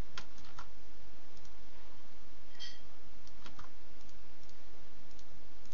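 Scattered clicks of a computer mouse and keyboard, about eight spread unevenly over a few seconds, over a steady low hum.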